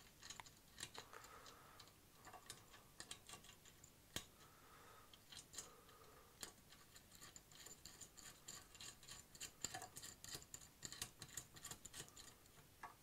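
Faint, irregular clicks and taps of small metal parts, screws and Allen keys being handled during hand assembly. The clicks come more often in the second half.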